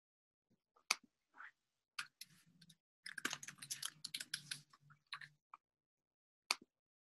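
Faint typing and clicking on a computer keyboard: a few scattered keystrokes, then a quick run of them in the middle, and one last single click near the end.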